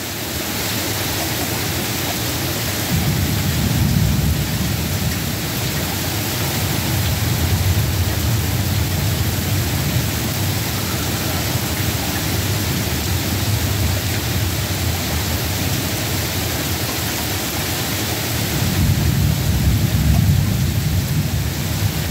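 Steady rain in a thunderstorm, with low thunder rumbling a few seconds in and again near the end.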